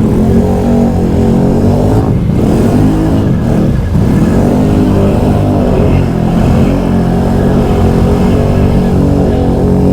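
Can-Am Outlander XMR ATV's V-twin engine revving up and down under load while churning through deep mud and water, the revs dipping and climbing again about two and four seconds in.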